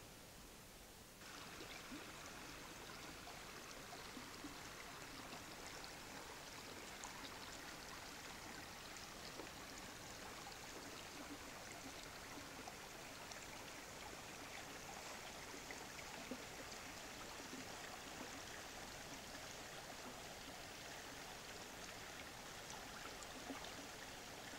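Faint, steady rush of a small forest river's water flowing over stones, starting suddenly about a second in.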